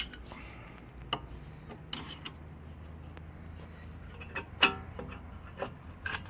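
Scattered metal clicks and clinks of parts and tools on a drum-type parking brake mechanism, with one loud ringing metallic clink about four and a half seconds in. The tension adjuster being worked is stuck and hard to move.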